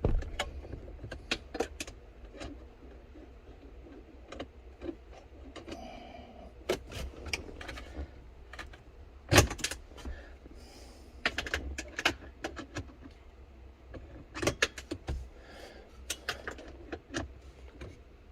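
Irregular metallic clicks, clinks and knocks of hand tools and parts being handled during work on a pickup's dashboard, with one louder knock about nine seconds in.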